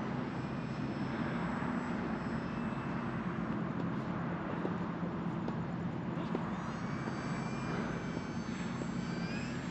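Small electric RC model airplane flying at a distance: a faint motor-and-propeller drone over steady outdoor noise, with a thin high whine that wavers in pitch in the last few seconds.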